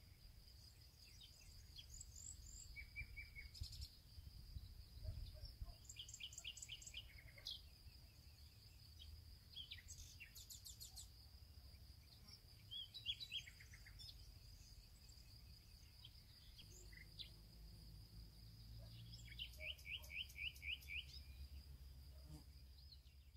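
Faint outdoor ambience of small birds singing: short chirping phrases and a quick trill of about five notes near the end, over a steady high-pitched tone and a low rumble.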